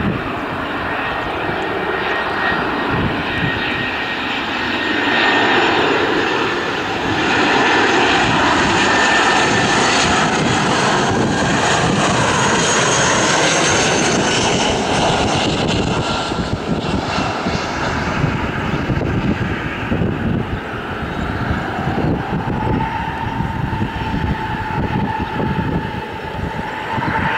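Airbus A320 jet engines on final approach: a loud jet noise with a high whine that builds as the airliner nears and passes, is loudest through the middle, then fades and grows uneven as it lands. A steady mid-pitched tone comes in during the last few seconds.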